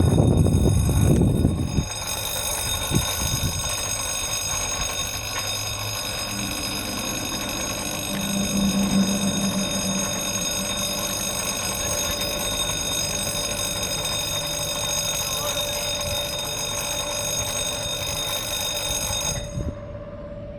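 An electric alarm ringing steadily: a high ringing tone with many overtones that stops suddenly near the end, leaving a fainter single tone.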